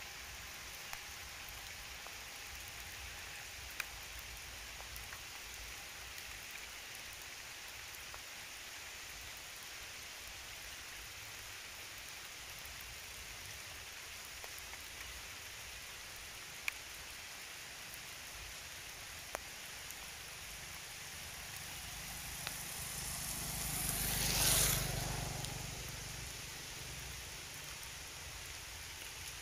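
Steady hiss of rain with occasional single drip taps. About three-quarters of the way through, a vehicle passes, its noise swelling for a couple of seconds, peaking and then fading.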